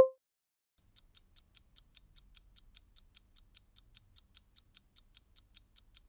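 A short electronic blip at the very start, then a stopwatch ticking sound effect marking a countdown timer, about five sharp ticks a second.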